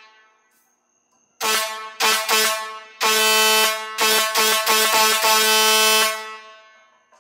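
Air horn of a 2000 Freightliner fire truck, given three short blasts and then held in one long blast of about three seconds that stops near the end.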